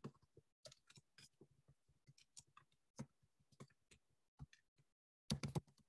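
Faint, scattered clicks and taps over near silence, with a short burst of several clicks close together near the end.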